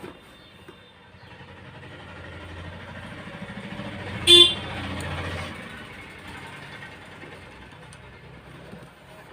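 A road vehicle passes, its engine rumble building up and dying away, with one short horn toot about four seconds in.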